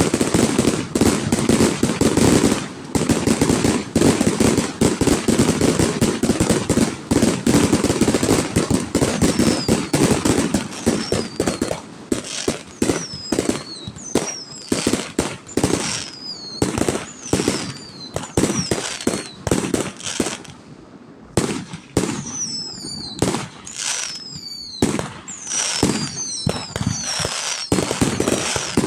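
Fireworks display: a dense barrage of rapid bangs and crackling for about the first third, then separate bangs, many followed by high whistles falling in pitch.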